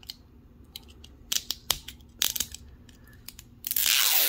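Fingernails clicking and crinkling on the plastic-coated wrapper of an LOL Surprise ball, then, near the end, the zipper strip peeled off the wrapper in one ripping pull lasting under a second: a nice satisfying peel.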